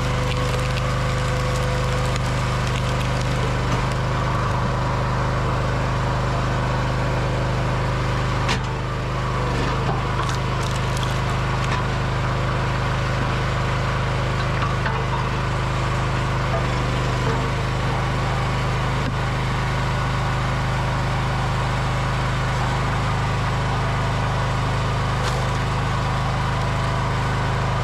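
Hydraulic log splitter's engine running steadily while a round is forced through its multi-way wedge, with a few sharp cracks of splitting, splintering wood partway through.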